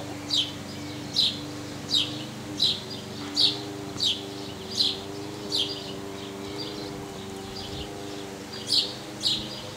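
A bird calling in a steady series of short, high, down-slurred chirps, about one every three-quarters of a second, pausing after about six seconds and starting again near the end, over a steady low hum.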